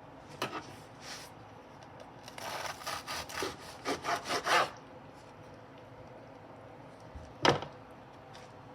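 Food-preparation handling sounds: a run of quick scraping, rubbing strokes from about two to nearly five seconds in, then one sharp knock near the end.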